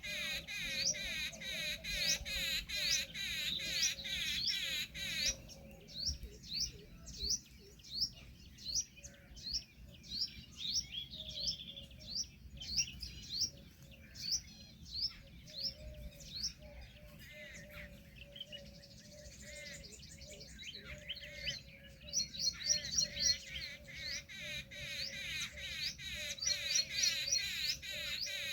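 Small songbirds chirping, many short high sweeping chirps repeated in quick succession, densest in the first few seconds and again in fast runs near the end, over a faint low repeated note.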